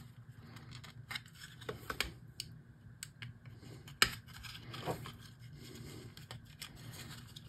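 Faint hand-handling noises of a small 3D-printed PLA part and thin LED wire leads being bent by hand: scattered light clicks and scrapes, the sharpest click about four seconds in.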